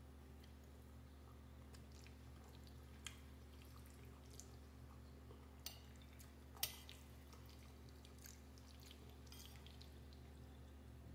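Mostly near silence with faint sounds of a person eating pasta with a spoon: a few short wet clicks over a steady low hum. The loudest click comes about six and a half seconds in.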